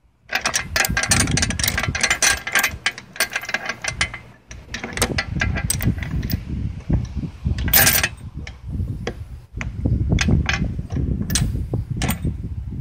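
Steel log dog and chain on a swing blade sawmill being worked by hand: irregular metal clicks, clanks and chain rattles as the dog is set against a log, with rubbing and handling noise close to the microphone.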